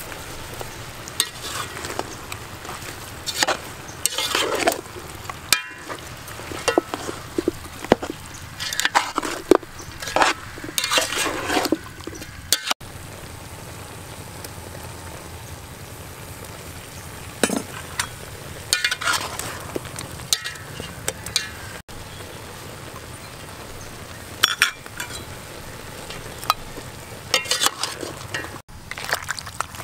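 A metal spoon stirring chopped raw meat and seasonings in a metal pot: clinks and scrapes against the pot come in several bursts over a steady background hiss.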